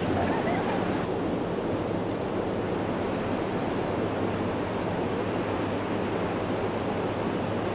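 Steady rushing of surf and wind on the microphone, with a low steady hum underneath.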